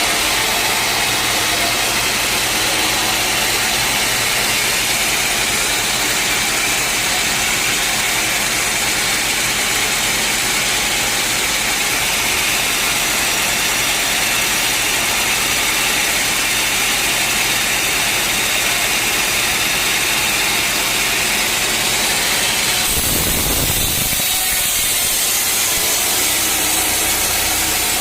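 Sawmill running and sawing a teak log: a steady, dense mechanical noise of the saw cutting wood. About 23 seconds in comes a brief low rumble, and after it the sound changes.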